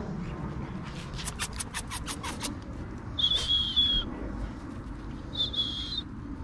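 A quick run of about eight sharp clicks, then two short, high, steady whistles a couple of seconds apart, the first dipping slightly in pitch at its end.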